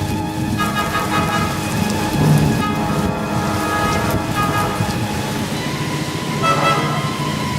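Background music with sustained, shifting chords over a steady hiss of wind-driven rain and road noise.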